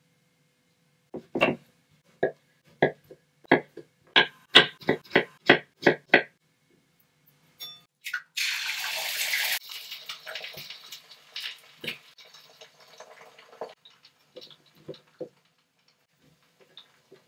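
A run of sharp knocks and clicks for about five seconds, then water from a tap running for a little over a second, followed by softer clinks and taps.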